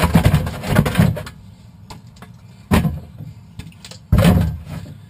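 Plastic 600 ml water bottles being slid and stacked by hand inside a kayak hull: a run of clattering knocks and rubbing, one sharp knock a little under three seconds in, then another burst of knocking and scraping about four seconds in.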